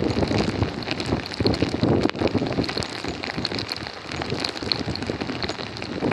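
Water noise from a flooded road, a dense irregular crackle, with wind buffeting the microphone.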